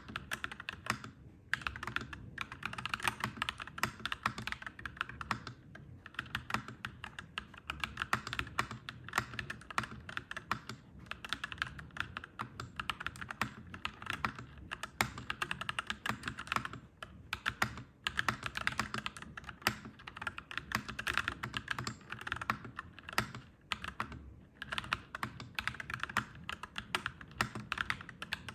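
Fast typing on a clacky mechanical keyboard: a dense, continuous stream of key clicks broken by a few brief pauses.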